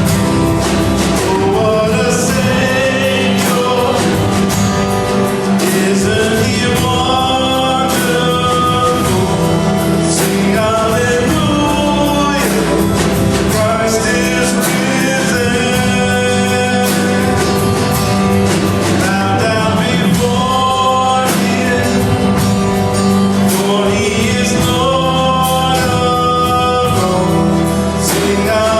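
A sung hymn or worship song with acoustic guitar strumming accompaniment.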